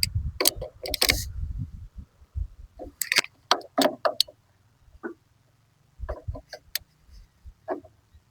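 Scattered metal clicks, clinks and knocks of hand tools, a socket wrench and vise grips, working on a lawn mower battery's terminal bolts, with a low rumble of handling during the first two seconds.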